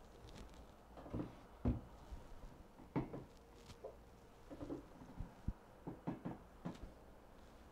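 Stretched canvases being handled and set down on cardboard: a run of light knocks and thuds, the loudest about two and three seconds in, the last near the end.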